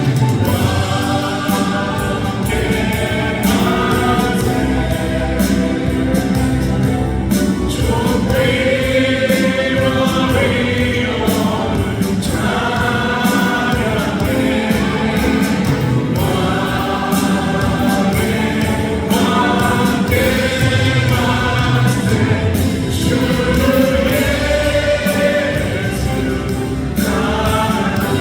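Music with a choir singing, in a gospel style.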